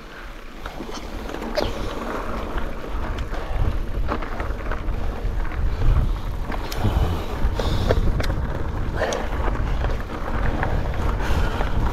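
Mountain bike ridden fast on a dirt and stone trail, heard from a chest-mounted action camera: wind buffets the microphone as a low rumble, and tyres on the ground and the bike's parts rattling over bumps give many short clicks and knocks. It grows louder over the first couple of seconds.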